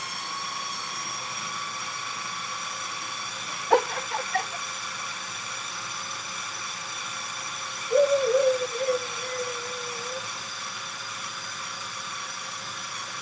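Food processor motor running steadily, whirring as it grinds a chickpea falafel mixture toward a sandy texture. A short knock about four seconds in and a brief wavering hoot-like voice sound around the middle.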